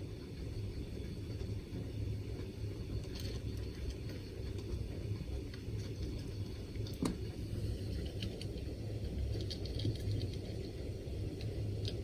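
A cat crunching dry kibble: faint, irregular crunches and clicks, one sharper click about seven seconds in, over a steady low rumble.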